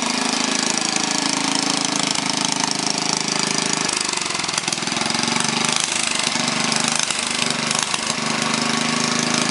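Small air-cooled garden-tractor engine running on the ground, unmounted, with a loud, fast, steady clatter. From about four seconds in, its low note dips and recovers several times.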